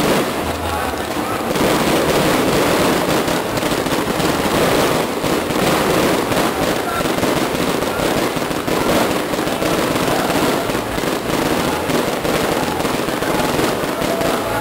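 Aerial fireworks bursting overhead, many bangs and crackles packed closely together in a continuous barrage.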